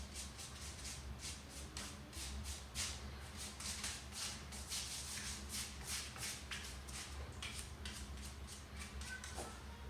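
Paintbrush strokes brushing and scratching across a canvas, a few soft strokes a second in an irregular rhythm, over a faint steady low hum.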